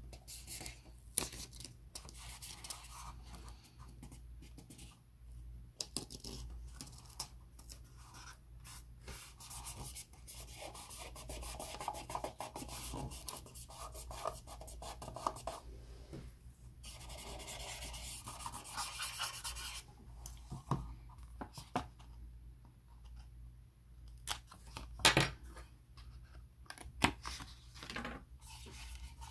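Fingers rubbing and smoothing a printed sticker down onto a plastic model cup, a dry scratchy rubbing that comes and goes, with a few sharp clicks near the end.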